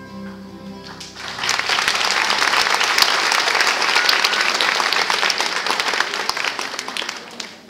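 A guitar ensemble's last chord fades out, then an audience applauds, strongly for about six seconds before the clapping dies away near the end.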